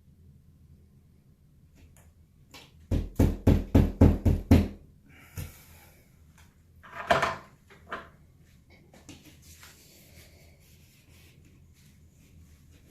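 A quick run of about seven knocks, about four a second, as a small hole is knocked through the ceiling to mark the spot for a new A/C supply register. A few shorter scraping knocks follow.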